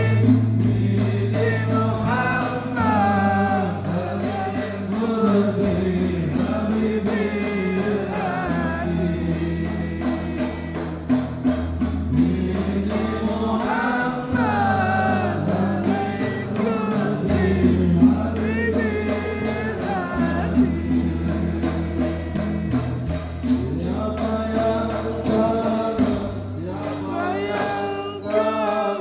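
Devotional song with voices singing together over a bass line of long held notes and light percussion.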